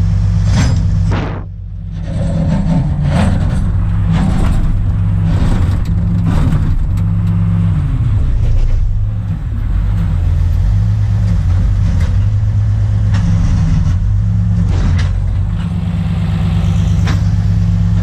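Small hydraulic excavator's engine running with a steady deep drone that shifts as the boom and bucket are worked through a dig cycle, with scattered knocks and clanks, heard from inside the open cab.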